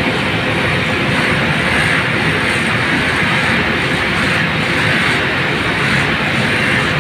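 Large ventilation fan blower running under test, a loud, steady, even rush of air through its grille.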